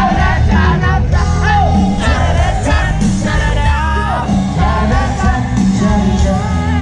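Live rock music from a concert stage: a singer over a full band with a strong, steady bass, amplified through a PA.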